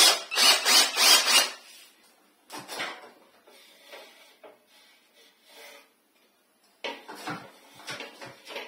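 Cordless drill's keyless chuck twisted by hand in a quick run of about six strokes to grip a bit or screw, followed by scattered knocks and scrapes as a plastic fan mount is handled and held against a tiled wall.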